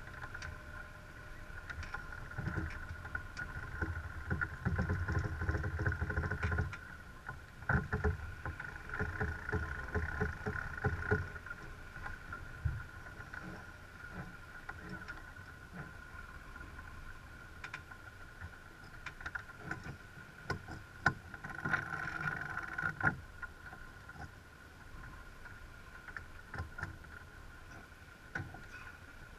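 Sailing yacht under way, heard from a deck-mounted camera: wind on the microphone and water rushing past the hull, coming in heavy gusty surges through the first ten seconds or so. Scattered sharp clicks follow, most of them around two-thirds of the way through.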